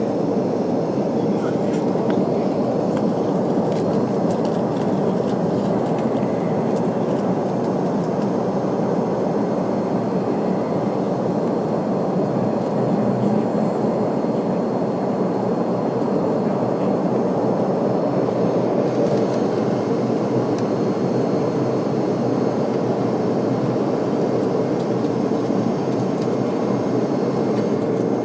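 Steady jet airliner cabin noise during takeoff and climb: engine and airflow rumble heard from inside the passenger cabin, holding at an even level.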